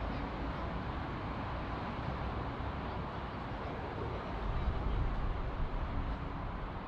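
Jet airliner engines heard as a steady rumbling roar, growing somewhat louder about two-thirds of the way in.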